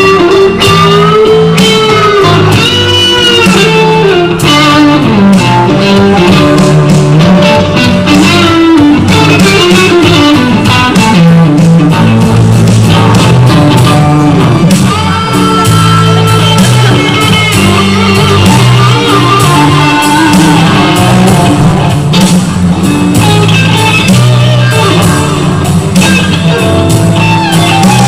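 Live blues-rock band playing, led by an electric guitar (a Fender Stratocaster) soloing with string bends and vibrato over bass and a steady rhythm part. The recording is very loud and overloaded.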